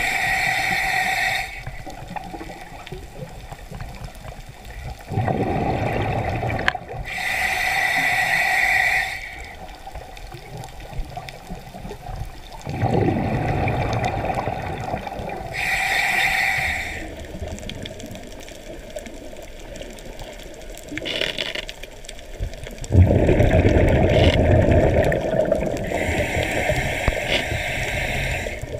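Scuba diver breathing through a regulator underwater. A hissing inhale comes every eight or nine seconds, and each is followed a few seconds later by a longer, low rumble of exhaled bubbles. There are four breaths in and three out, and the last exhale is the loudest.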